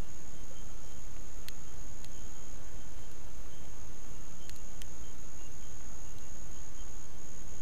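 Insects, such as crickets, trilling in one steady high-pitched band, over a low rumble, with a few faint clicks.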